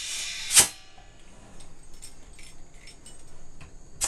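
Compressed air hissing into a SEAFLO accumulator tank's air valve from an air-tank chuck, ending in a short loud burst of air about half a second in as the chuck comes off. Faint metallic clicking and jingling of the fittings follows, and a short sharp hiss of air at the valve near the end.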